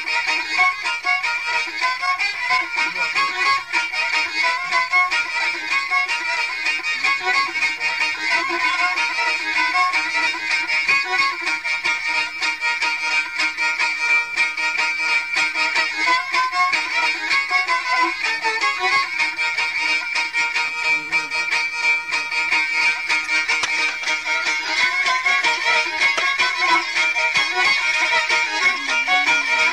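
Kurdish raks (folk dance) music playing continuously from an old cassette recording, with a busy melody line and thin, bass-light sound.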